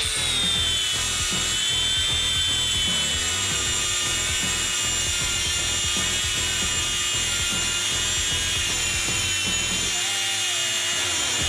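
DeWalt DCG413 20-volt brushless cordless angle grinder with a 4.5-inch 80-grit flap disc grinding quarter-inch steel flat bar: a steady high motor whine over the rasp of the disc on the metal, held at full speed under load.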